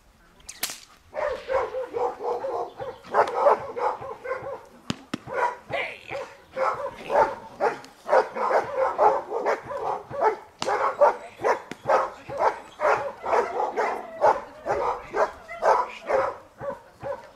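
Giant Schnauzer barking rapidly and continuously, about two to three barks a second, in protection-training agitation at a helper holding a bite sleeve and stick. A few sharp cracks stand out among the barks.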